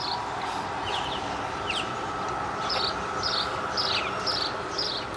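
Birds chirping: a run of short, high chirps, each sweeping downward, a few at first and then about two a second from the middle on.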